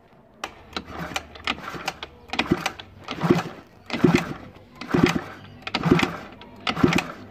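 Cylinder barrel of a 50cc two-stroke scooter engine being worked down over the piston and rings, making repeated metal scraping and rubbing strokes about once a second that grow louder after the first couple of seconds.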